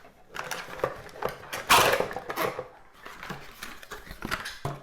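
Packaging being handled: irregular rustling, crinkling and small clicks as items are taken out of the LED strip kit's box, with the loudest crinkle about two seconds in.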